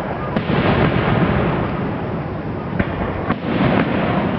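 Aerial fireworks going off in a dense, continuous barrage of bangs and crackling, with a few sharper reports about half a second in and around three seconds in.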